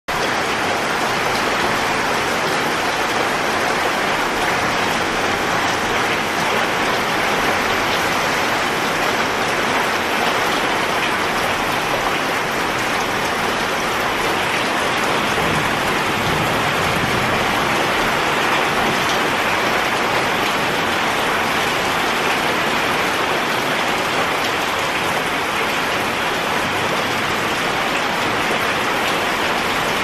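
Steady rain falling on a muddy puddle and wet gravel: an even, unbroken hiss of many drops striking water and stones.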